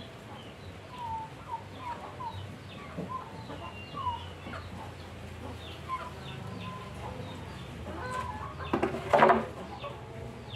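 Birds calling: a string of short, repeated chirps, with one louder, brief call about nine seconds in.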